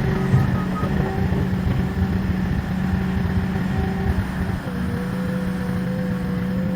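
An engine running at a steady speed, with sustained held notes over it that change pitch from time to time, one new note starting a little past halfway.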